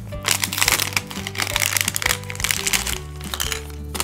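Clear plastic packaging bag crinkling and crackling as it is peeled open and handled, over background music.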